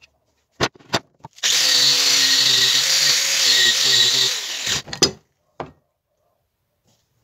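A small motor runs steadily for about three seconds, with a few sharp clicks just before it starts and after it stops.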